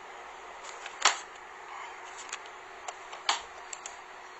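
Irregular sharp clicks and taps over a steady hiss, the two loudest about a second in and a little past three seconds in, with several fainter ticks between.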